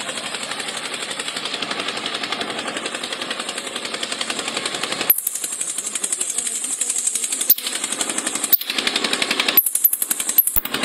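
Rapid rhythmic mechanical rattle from a toy digger's motor and gears, about seven beats a second, while it scoops and drops sand into a toy trailer. Several sharp clicks come in the second half.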